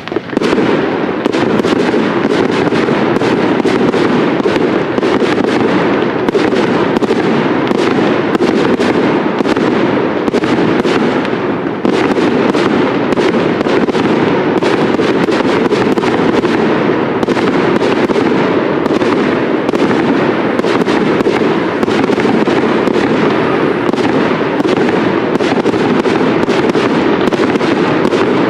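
Fireworks display: a dense, unbroken barrage of shells bursting and crackling, many sharp reports a second, which jumps up sharply just after the start.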